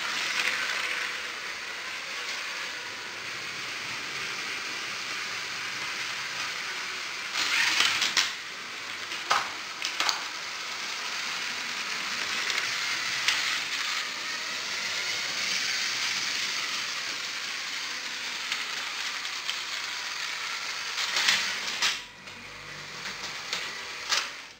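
Lego trains running over plastic track: a steady rattling whir of small train motors and wheels, broken by several louder clatters along the way. It dies down near the end as the trains stop.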